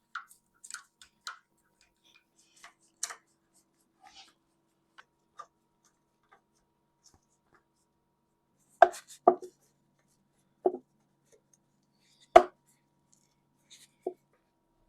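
Scattered light clicks and taps, then a handful of sharper knocks, the loudest about twelve seconds in: M8 bolts and tools being handled while the belt housing is bolted onto a Bridgeport J milling head.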